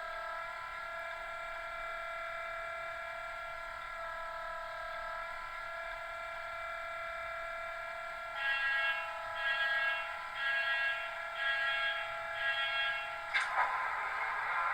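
Loksound v4 DCC sound decoder playing a Class 66 diesel engine idling through the model's twin small speakers: a steady, thin engine drone with no bass. From about halfway through it pulses in a slow rhythm, about once a second, and a sudden noisy burst comes near the end.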